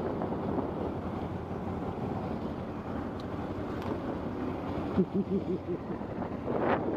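Wind rushing over the microphone of a moving motorcycle, the engine running steadily beneath it. About five seconds in there is a quick run of about five short pulses.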